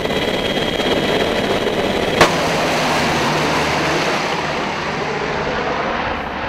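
Black Hawk helicopter heard from inside the cabin in flight: a steady, loud rotor and turbine noise with a low hum, broken by one short sharp click about two seconds in.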